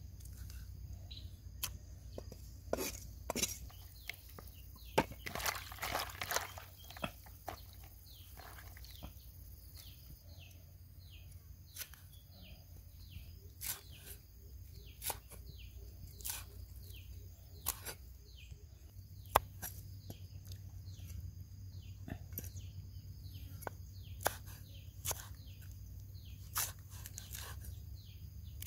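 Cleaver knocking irregularly on a wooden chopping block, with single sharp taps, while squid and then fresh red chilies are cut. Behind it run a steady high insect hum and many short, falling chirps repeated over and over.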